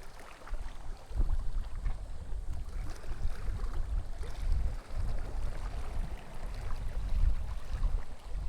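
Wind buffeting the microphone in uneven low gusts, with the sound of sea waves lapping faintly underneath.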